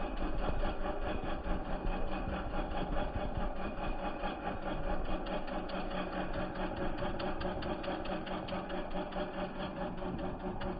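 Boat engine running steadily, with a fast, even chatter.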